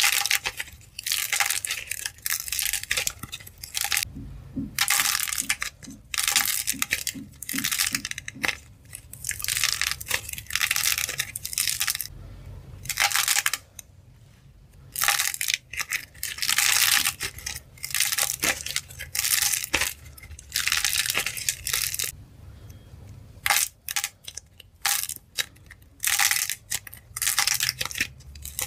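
Soft red clay balls with a hard, glossy dried shell being cracked and squeezed by hand. The sound is crisp crackling in bursts of about a second, again and again, with short pauses between.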